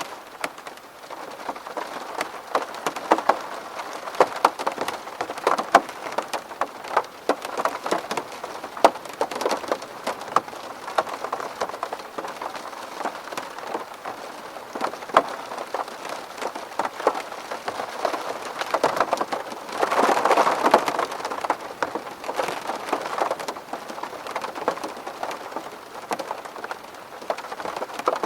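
Rain falling on window glass: a steady hiss with many individual drops tapping sharply, and a heavier spell about two-thirds of the way through.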